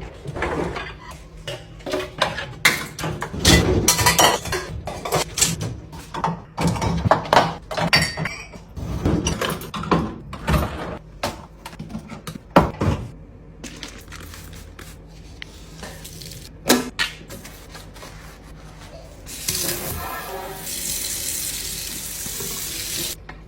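Kitchen clatter of dishes, containers and utensils being handled, many quick knocks and clinks, thinning out about halfway through. Near the end a tap runs steadily for a few seconds.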